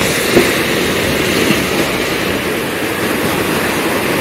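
Ocean surf breaking and washing over sand and rocks, a steady rushing noise.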